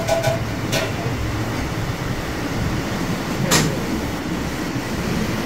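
Steady background hum of a shop counter, broken by a few sharp clicks and knocks, the loudest about three and a half seconds in.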